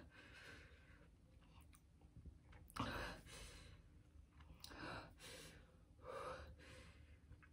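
A woman breathing out hard through pursed lips, a few heavy sighing exhales spaced a second or two apart from about three seconds in, trying to cool a mouth burning from a super-hot chili chip.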